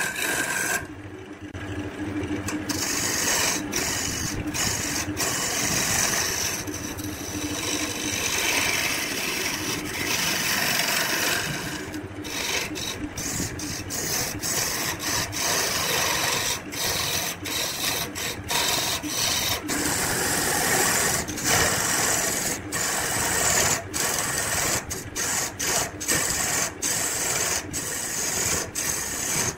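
Wood lathe running, with a tool or abrasive rasping against the spinning wood; the sound is broken by many brief gaps, most of them in the second half.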